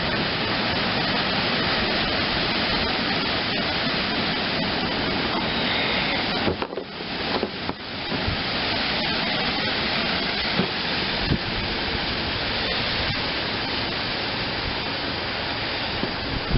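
Steady rushing noise, like wind on the microphone, dipping briefly twice a little past halfway.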